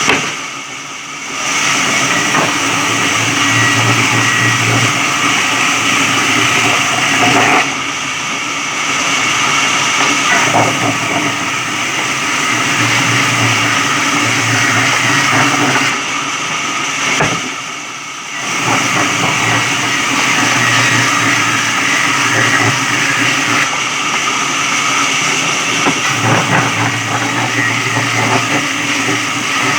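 Electric sawmill running and cutting wood: a loud, continuous machine noise with a steady hum and grinding, dropping briefly three times, about a second in, near the middle, and again a little later.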